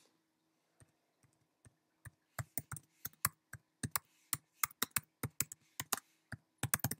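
Typing on a computer keyboard: a run of separate key clicks, a few scattered at first, then quicker from about two seconds in, with a fast flurry near the end.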